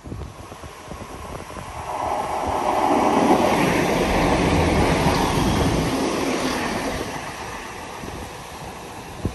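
A train passing: rumbling wheel-and-rail noise swells over a couple of seconds, is loudest in the middle, then fades away.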